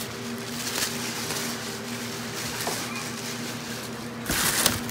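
Tissue paper rustling and crinkling as a gift bag is unpacked, with a louder crinkle near the end. A steady low hum sits underneath.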